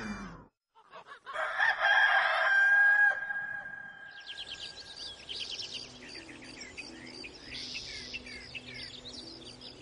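A rooster crows once, starting about a second in and ending on a long held note, then small birds chirp steadily.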